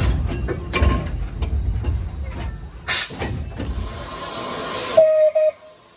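Small steam locomotive standing with its steam hissing, a few metallic knocks over a low rumble, then two short whistle toots near the end before the sound cuts off.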